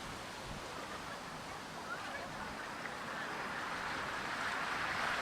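Water from a park fountain splashing and spraying in a steady hiss that grows louder over the last couple of seconds.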